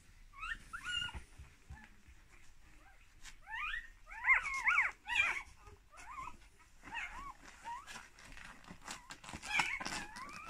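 Two-day-old husky puppies squeaking and whimpering in short, high, rising-and-falling cries. The cries come in several clusters, loudest about four to five seconds in.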